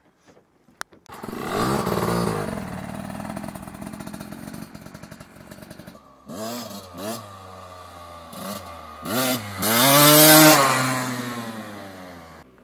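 A 250 cc dirt bike engine revving and accelerating, its pitch rising and falling again and again through the throttle and gear changes. It is loudest about ten seconds in, then dies away.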